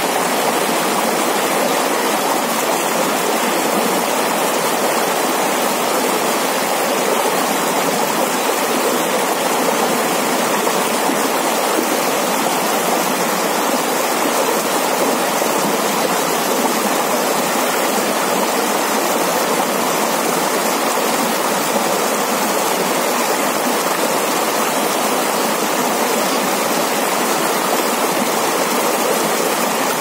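Flowing water running in a steady, unbroken rush, with little deep rumble.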